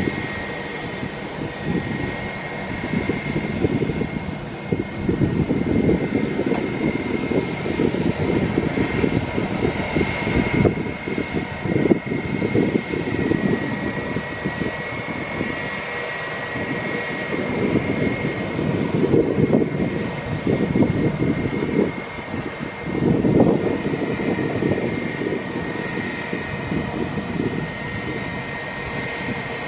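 Airplane engines running, with a steady high whine over an uneven low rumble that swells and fades.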